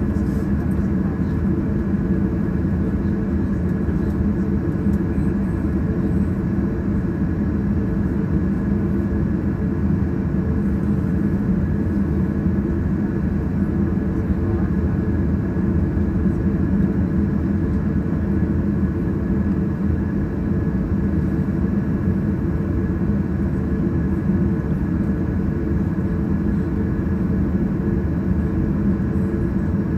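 Airliner engines idling steadily, heard from inside the cabin, a constant hum with a few held tones that does not rise or fall while the aircraft waits on the ground.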